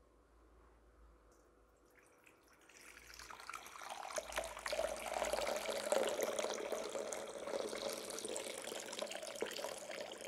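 Water poured from a glass jug into the bowl of a baptismal font, a steady splashing stream that starts about three seconds in and grows louder.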